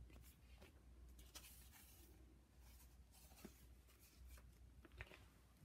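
Faint rustling of a thin white packing sheet being lifted off a box of oil pastels, with a few soft taps of handling.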